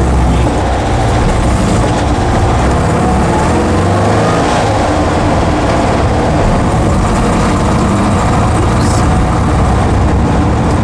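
Porsche 912's air-cooled flat-four engine pulling the car along, heard from inside the cabin, its pitch rising about three to four seconds in as it accelerates.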